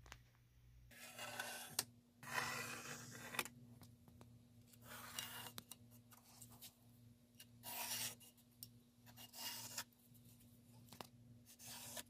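Pencil lead scratching across plywood in a series of short strokes, marking layout lines around the soldering station's parts.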